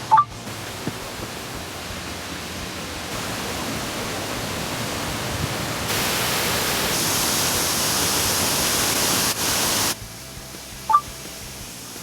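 Waterfall or mountain stream rushing, a steady roar of water that grows louder in sudden steps and cuts off abruptly about ten seconds in, leaving a quieter hiss. A short high blip sounds right at the start.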